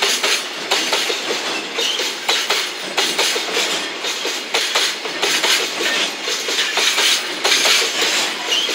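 Loaded container wagons of a long freight train rolling past, their wheels clicking again and again over the rail joints in a clickety-clack over a steady rumble and hiss.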